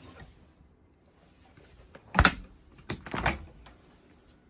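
Compressor fridge freezer door being worked: a sharp click about two seconds in, then a quick cluster of clicks and knocks about a second later, typical of a latch releasing and the door moving.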